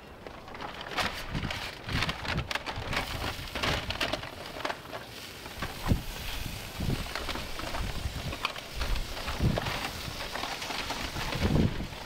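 Aluminium foil crinkling and rustling irregularly as foil-wrapped pork ribs are unwrapped on the smoker grate, with a few dull knocks of handling.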